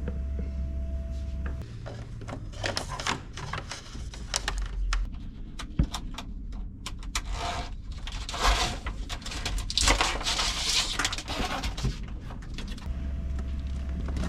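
Hand-handling noise from cables and a rubber waterproof boot being worked: scattered clicks and knocks with a few longer rustles in the second half.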